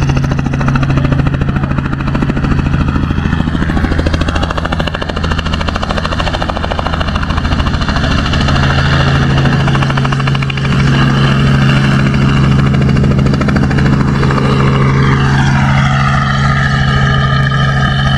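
Robinson R44 helicopter lifting off into a hover and flying away: the steady beat of its main rotor over its six-cylinder piston engine, which gets louder about ten seconds in as it rises. About fifteen seconds in, a whine falls in pitch as it moves off.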